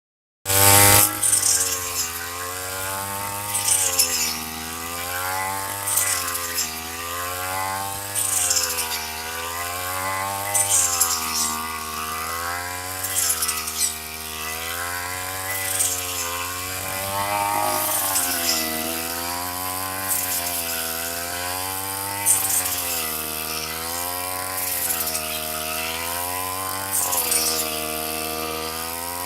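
Small 32.6 cc two-stroke engine of a handheld rice harvester running at high speed, starting abruptly. Its pitch dips and recovers about every two seconds, each dip with a brief rasping swish as the cutter loads up going through the rice stalks.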